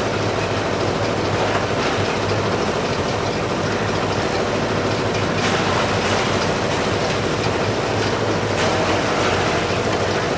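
Steady, loud mechanical rumble of heavy machinery with a low hum, and a few faint clanks scattered through it.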